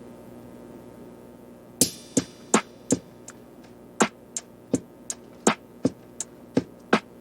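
Background music: a soft steady hum, then about two seconds in a drum-machine beat of sharp, clicky hits starts and keeps a steady rhythm.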